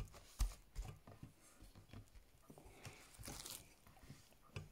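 Red slime packed with small foam beads being poked and stretched by hand, giving faint, scattered crackles as the beads are squeezed.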